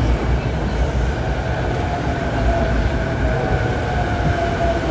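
Chuo Line Rapid electric train, a JR East E233-series, moving along the platform: a steady rumble of wheels on rail with a faint steady whine on top.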